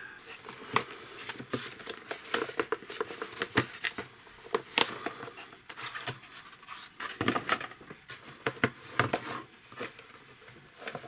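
Cardboard kit box being opened and unfolded by hand: irregular scraping, tapping and rustling of card.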